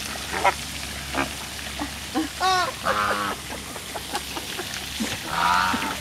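A flock of flamingos calling with several short, goose-like honks at irregular intervals.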